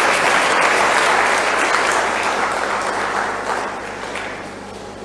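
An audience applauding, a dense patter of many hands clapping that fades away about four seconds in.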